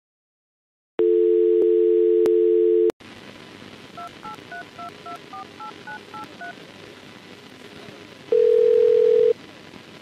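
A telephone line: a steady dial tone comes on about a second in and stops near three seconds, then over line hiss a ten-digit number is dialed in touch tones, and about eight seconds in the line gives one ring of the ringback tone.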